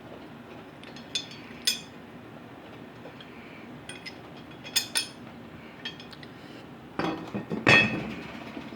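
Sharp metal clinks and knocks: a few single clinks, then a louder clatter of knocks near the end.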